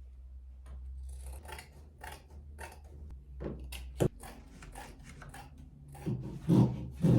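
Irregular clicks and rustles of objects being handled, over a steady low hum, with a sharp knock about four seconds in and a few heavier knocks near the end.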